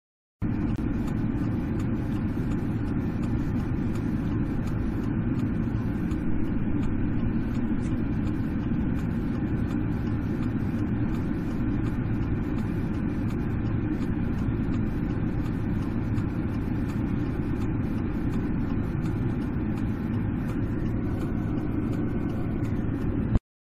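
Car engine idling, a steady low hum heard from inside the cabin. It cuts off suddenly near the end.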